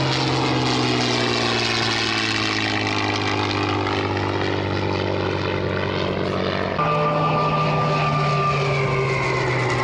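WWII piston fighters' V12 engines on low flypasts. First a P-51 Mustang passes, its engine note falling as it goes by. After a cut about seven seconds in, a Hawker Hurricane passes with its own note also falling.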